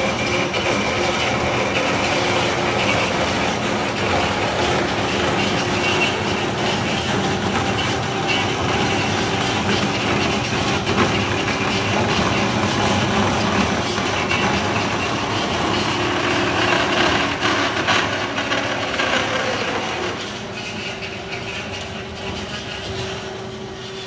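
Loud, steady machinery noise with a constant hum, easing off about 20 seconds in.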